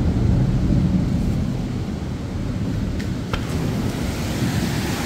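Heavy rain falling as a steady, dense rumble with most of its weight in the low end.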